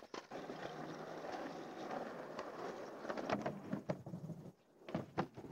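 Skateboard wheels rolling over a rough asphalt court, a steady rumble that stops about four and a half seconds in. Sharp clacks of the board hitting a plywood ramp come in the second half.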